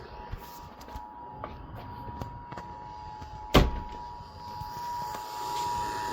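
Emergency Alert System two-tone attention signal, a steady dual tone held under background hiss. It is faint at first and louder from about four seconds in, with a sharp click a little past halfway and a few fainter ticks before it.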